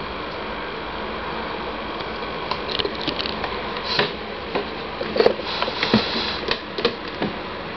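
A steady hiss of background noise, with scattered light clicks and taps from about two and a half seconds in.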